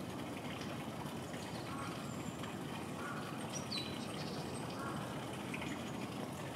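Steady outdoor background noise with a few faint, short high chirps scattered through it.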